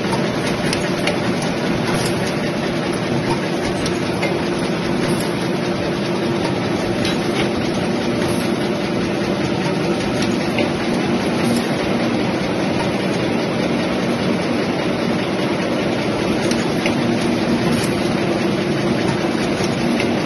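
Napkin paper production and packing machinery running steadily: a constant mechanical din with a steady hum and faint clicks recurring every second or two.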